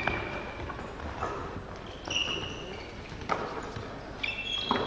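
Basketball game sounds on a gym floor: about four separate thuds of the ball bouncing and feet landing, with short high sneaker squeaks about two seconds in and again near the end.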